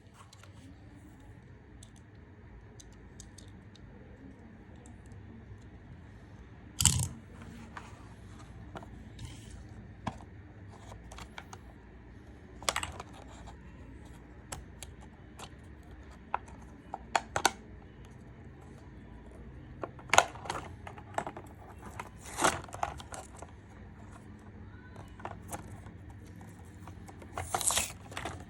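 The packaging of a diecast model car being torn open and handled: intermittent tearing and rustling with scattered sharp clicks and taps, a few of them louder than the rest.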